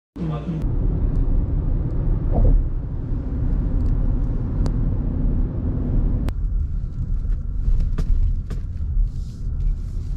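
Car driving along a road, heard from inside the cabin: a steady low rumble of tyres and engine, with a few light clicks.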